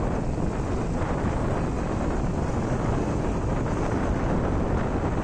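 Wind buffeting the microphone over the steady rumble of a vehicle driving along the road.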